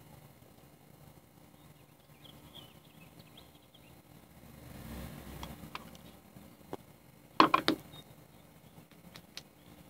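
A few scattered light clicks, then a quick cluster of knocks about seven and a half seconds in, over faint background sound.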